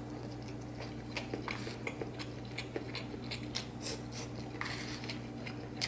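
A man chewing a mouthful of seasoned fried rice up close, with soft, scattered wet clicks and smacks of the mouth. A steady low hum runs underneath.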